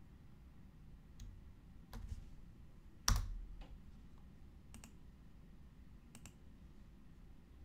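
Quiet, scattered computer keyboard keystrokes and mouse clicks, about five in all, the one about three seconds in the loudest, with a low thump.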